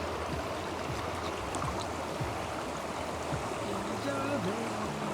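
Flowing river water, a steady rushing hiss, with a person's voice coming in faintly about two-thirds of the way through.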